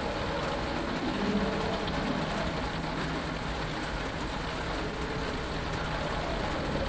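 Steady rain pattering on an X-wing's cockpit canopy, heard from inside, over a constant low rumble.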